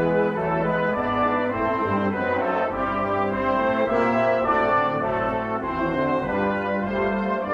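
Brass ensemble playing slow held chords, the notes changing about once a second.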